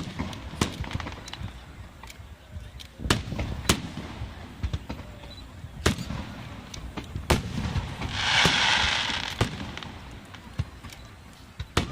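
Aerial fireworks bursting overhead: a string of sharp bangs at uneven intervals, with a loud hissing rush lasting over a second about eight seconds in.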